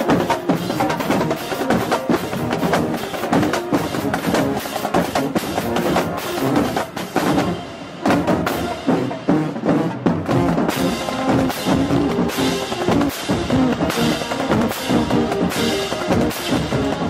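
Background music with a prominent drum beat and percussion.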